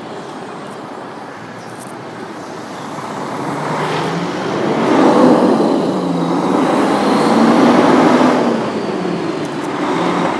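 Diesel engine of a semi tractor pulling a municipal solid-waste trailer, passing close by on the street. It grows louder about four seconds in and eases off near the end.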